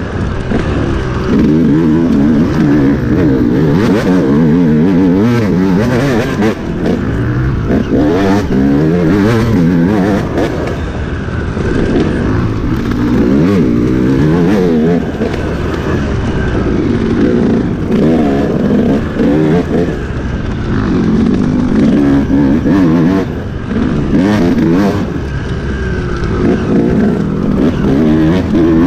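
Enduro dirt bike engine revving up and down over and over as the throttle is worked through a trail section, its pitch rising and falling every second or two.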